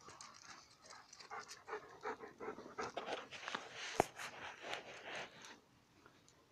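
Two dogs play-fighting, with quick panting and scuffling that builds through the middle and dies down near the end. A single sharp knock about four seconds in.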